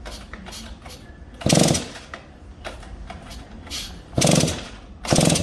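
Large vintage Stihl chainsaw being pull-started: three short, loud bursts as the rope is pulled and the engine turns over without catching yet.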